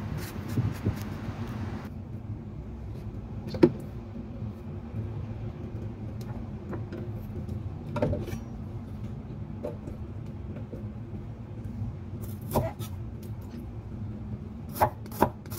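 A few scattered knocks on a wooden chopping board while a white bitter gourd is seeded and handled. Near the end a cleaver begins slicing the gourd on the board in quick, even chops.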